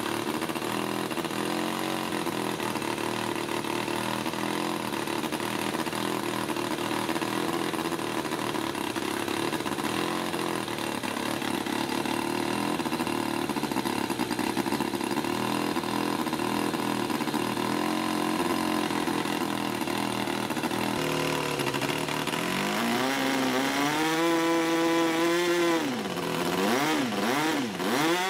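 O.S. Wankel 49-PI model rotary glow engine running with its propeller turning: a steady, even note for most of the time. In the last several seconds its revs rise, hold, then drop and climb again several times in quick swings.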